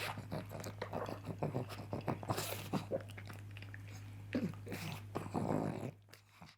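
A pug eating sausage: quick wet chewing and lip-smacking clicks, with two longer breathy bursts at about two and a half and five and a half seconds in. A steady low hum lies underneath, and everything stops about six seconds in.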